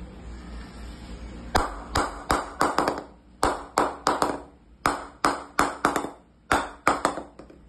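Wooden bat mallet knocking repeatedly on the face of a new Kashmir willow cricket bat: sharp knocks, each with a short ringing ping, about eighteen strikes in quick uneven groups starting about a second and a half in. It is the mallet test of the bat's ping, the sound the maker judges the willow by.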